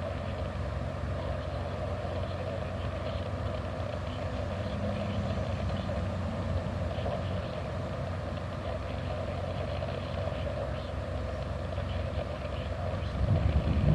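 Steady low rumble of a running vehicle engine, growing louder about a second before the end.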